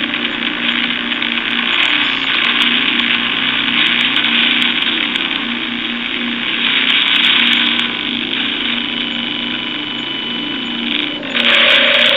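Spirit box app sweeping through radio noise: a loud, steady hiss of static with a fast, choppy stutter underneath.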